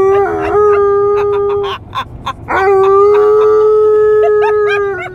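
Alaskan malamute howling in a car: one long howl, held at a nearly level pitch, ends a couple of seconds in, and after a short pause a second long, level howl starts and runs almost to the end.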